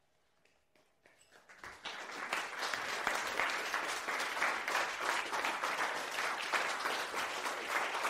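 A small audience breaking into applause at the close of a performance: a moment of quiet, a few first claps about a second in, then steady clapping from the whole room.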